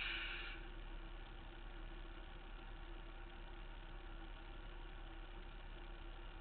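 Harvest truck's engine idling steadily while the truck stands still, heard as a low hum through the truck body. There is a brief hiss right at the start.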